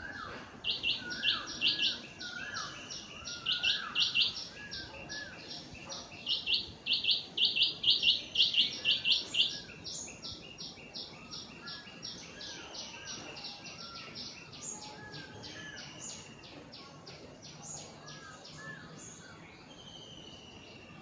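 Small birds chirping, with rapid runs of short high chirps that are loudest in the first half, over scattered lower, looping calls.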